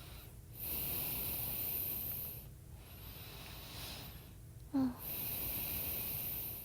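A woman's slow, heavy breaths close to a phone microphone: two long breaths of about two seconds each, with a brief small vocal sound between them.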